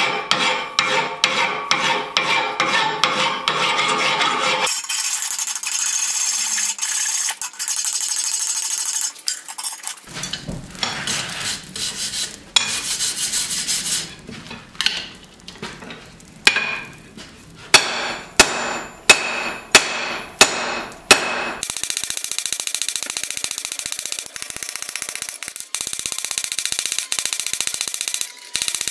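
Hand rasp scraping in quick repeated strokes across red-hot O1 tool steel, filing out a cold shut, a fold flaw in the forging. About two-thirds of the way through, a run of sharp hammer blows on the hot steel over the anvil, about two a second.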